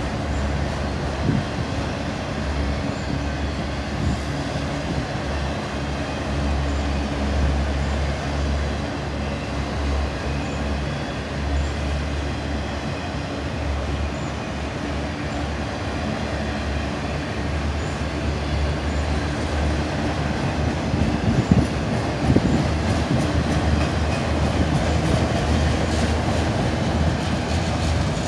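Autorack freight cars of a BNSF train rolling past, a steady rumble of steel wheels on rail. A few sharper knocks and clanks stand out about three quarters of the way through.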